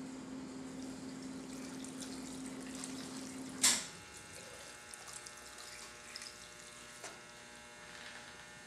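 Corned beef cooking broth poured from a pot into a plastic container of sliced meat, a steady stream of liquid that stops about three and a half seconds in with one sharp clank. A faint steady hum follows.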